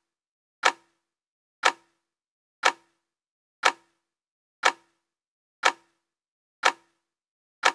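Clock-like countdown tick sound effect: a sharp tick once a second, eight times, each with a brief low ring after it.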